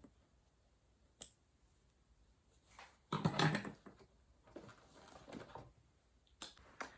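Denim jeans being pulled free of a sewing machine and handled. A single sharp click about a second in, then two stretches of fabric rustling, and a couple of light clicks near the end.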